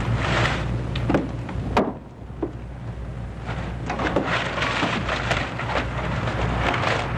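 Scattered knocks and clatter of objects being handled, over a steady hiss and low hum from a worn film soundtrack; the sharpest knock comes a little under two seconds in.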